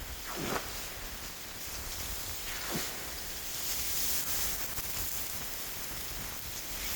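Steady hiss of blizzard wind on the microphone, with a couple of brief swishing gusts.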